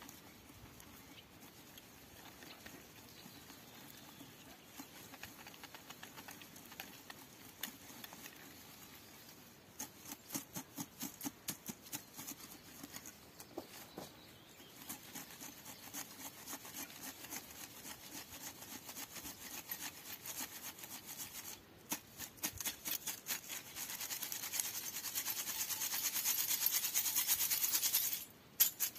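Wood-stove ash being sifted through a hand-held metal mesh sieve over a metal bucket: the sieve is shaken and tapped in quick rhythmic spells, with the scratchy rustle of ash and cinders in the mesh. The shaking gets louder and faster near the end. The sifting separates out unburnt charcoal bits and nails from old boards.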